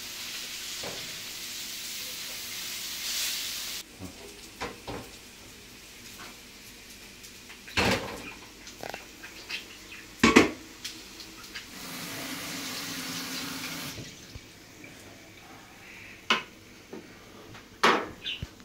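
Food sizzling in a hot pan for the first few seconds, then scattered clinks and knocks of dishes and cooking utensils, the loudest about ten seconds in.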